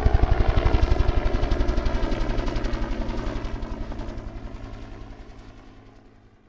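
Bell UH-1 Huey helicopter, its two-blade main rotor beating at about ten to eleven pulses a second over the steady hum of the turbine, fading away to silence near the end.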